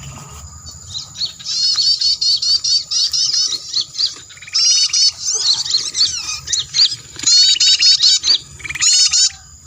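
Small songbirds calling in fast runs of high-pitched chirps, several bursts with short pauses between them, as heard on a bird-luring setup that plays lure calls.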